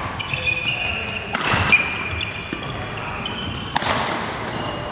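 Badminton practice: several sharp hits of rackets on shuttlecocks, the clearest about a second in and near the end, with short squeaks of sports shoes on the hall floor.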